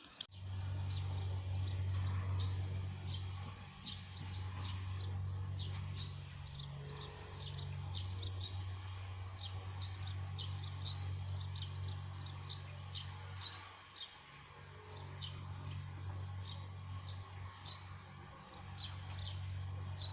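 Bird chirping over and over, short high notes that fall in pitch, about two or three a second, over a low rumble that drops out briefly a few times.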